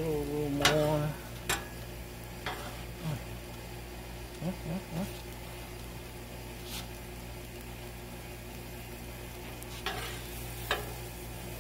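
Burger patties and buns sizzling steadily on a Blackstone propane flat-top griddle. A metal spatula clicks and scrapes on the steel cooktop several times as buns are lifted, loudest about a second in.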